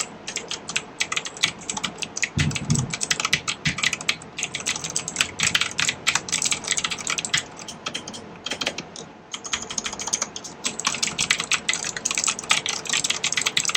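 Rapid typing on a Cosmic Byte CB-GK-16 Firefly mechanical keyboard with Outemu blue switches: a dense run of sharp, clicky keystrokes, with a short lull about nine seconds in.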